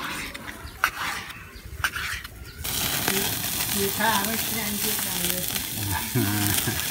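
A knife cutting roast beef on a wooden cutting board, a few light taps. About two and a half seconds in this gives way to beef sizzling on a wire grate over a charcoal grill, a steady hiss that is the loudest sound.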